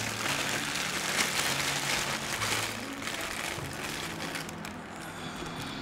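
Foil-lined food bag crinkling and rustling while crisp fried chicken pieces are shaken out of it onto a plastic plate, a dense crackly rustle that dies down about five seconds in.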